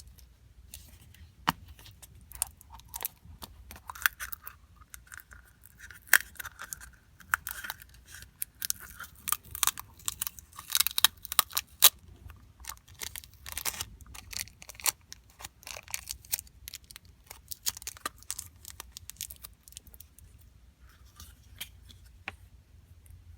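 Hands opening a plastic gacha capsule and unwrapping the small toy inside: an irregular run of plastic clicks, crinkling and tearing, busiest in the middle.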